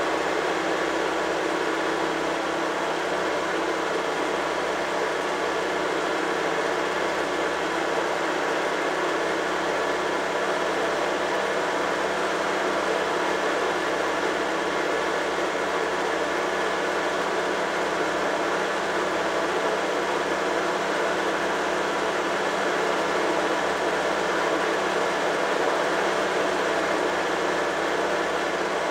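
Tractor engine running steadily under way on the road, heard close up from the tractor's own bonnet beside its upright exhaust stack: an even, unchanging drone.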